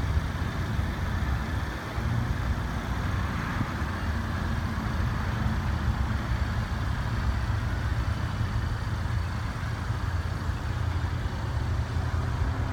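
Steady low rumble of a motor vehicle engine idling.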